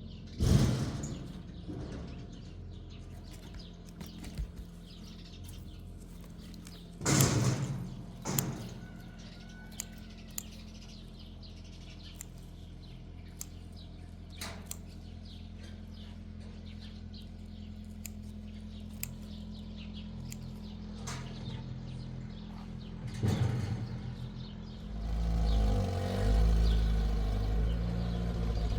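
Engine idling steadily, with a few loud thumps and knocks and scattered small clicks. Near the end the engine grows louder, as if revving or pulling away.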